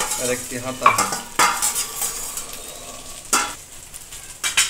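Chicken and potato pieces sizzling in a frying pan while a metal spoon scrapes fried potato cubes out of a steel bowl into it and a spatula stirs. A steady frying hiss, with a few sharp metal clinks.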